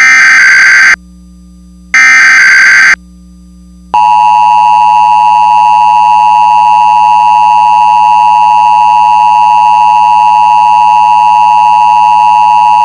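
Emergency Alert System tones: two one-second bursts of the SAME digital header data tones, a second apart, then from about four seconds in the steady two-tone attention signal.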